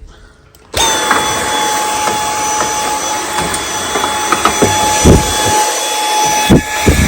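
Dyson V8 Extra cordless handheld vacuum switched on a little under a second in, its motor running with a steady high whine. A few dull knocks of the tool against a surface come near the end.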